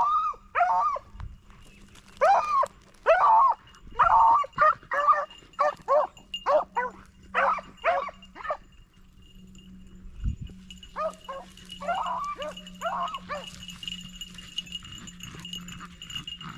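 Beagles baying as they run a rabbit's scent trail: a fast string of loud barks for about eight seconds, a short pause, then a shorter burst of barks.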